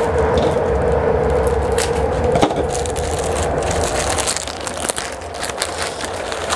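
Clear plastic packaging bag crinkling and crackling as it is handled and pulled open, the crackles thickest in the second half. A steady background hum drops away about four seconds in.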